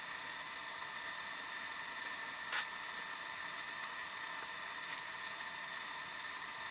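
Steady background hiss with a faint high whine, broken by a few short, sharp clicks of small parts or tools being handled, the loudest about two and a half seconds in.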